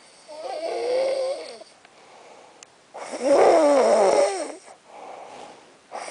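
Snoring: two long, wavering, pitched snores, the second one louder, with quieter breathing between them.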